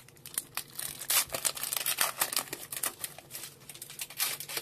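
A Pokémon booster pack's foil wrapper crinkling and tearing as it is opened by hand, in a dense run of sharp crackles.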